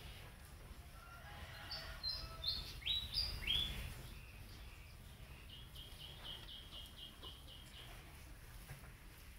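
Birds chirping: a few sharp rising chirps about two to four seconds in, then a quick run of short high notes, about four a second, over a low rumble.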